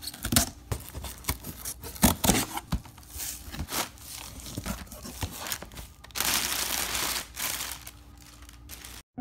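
A cardboard shipping box being opened and unpacked: packing tape slit and torn, cardboard flaps pulled back and plastic air-pillow packing crinkling. Irregular sharp clicks and scrapes, with a longer, denser rustle about six seconds in.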